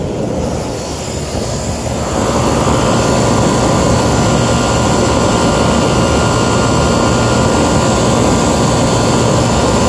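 Air-conditioning condensing unit running: the outdoor fan and compressor make a loud, steady rushing hum that gets louder about two seconds in and then holds steady.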